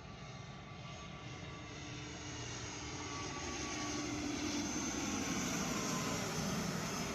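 Airliner coming in low to land, its engine noise growing steadily louder, with whining tones that slowly fall in pitch.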